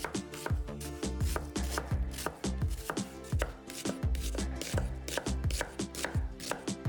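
A kitchen knife chopping on a cutting board in quick, irregular strikes, over background music with low drum hits.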